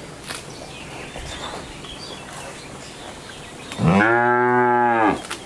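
A cow moos once, about four seconds in: a single loud, pitched call lasting just over a second that rises and then falls.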